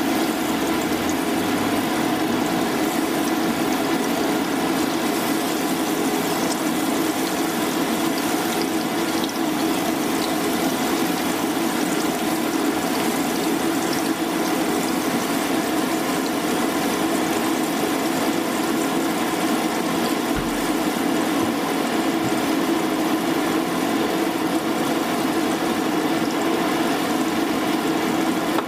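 Batter-coated jackfruit pieces frying in hot oil in a pan: a steady, even sizzle.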